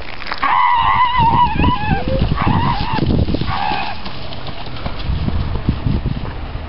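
A person's high, wavering yell lasting about a second and a half, followed by two shorter calls, over a low rumble on the microphone.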